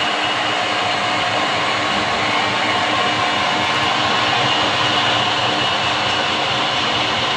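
Baoji 660 × 2000 metal lathe running at a steady speed: a constant mechanical hum with several steady whining tones over it.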